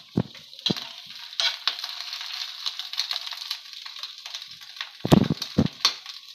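Big onion chunks sizzling in hot ghee in a frying pan as they are stirred, with scattered knocks of the spatula on the pan; the loudest is a pair of thuds about five seconds in.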